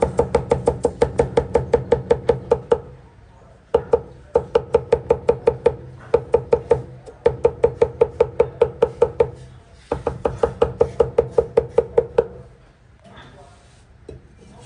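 Chinese cleaver rapidly mincing ginger on a thick round plastic cutting board, about six chops a second in four runs with short pauses between. Each chop is a sharp knock with a brief pitched ring, and the chopping stops about twelve seconds in.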